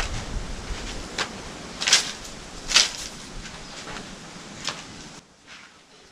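A bundle of dry sticks rustling and clattering as it is set down, with a few sharp cracks, then footsteps on dry dirt.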